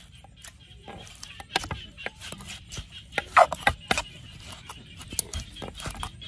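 Metal spoon scraping and knocking against a wooden mortar while the pestle taps, as shredded green papaya and long beans are tossed for papaya salad: a run of irregular clicks and knocks, with one brief louder, pitched sound about three and a half seconds in.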